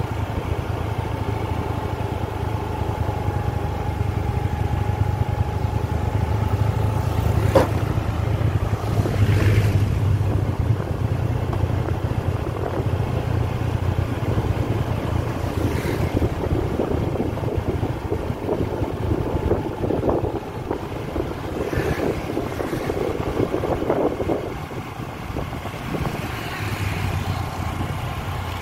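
Motorbike engine running steadily while riding, with wind rushing past the microphone and a sharp click about seven and a half seconds in.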